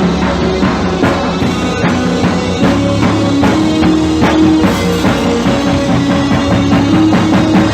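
Rock-style music: a drum kit keeping a steady beat under held, sustained pitched notes.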